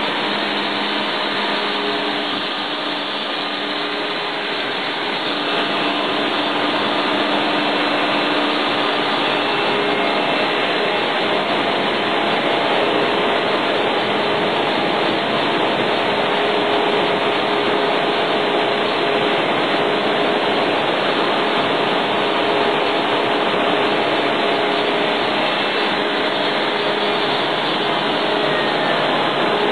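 PE film bag pelletizing machine running, a steady, even mechanical noise with a few faint steady hum tones beneath it.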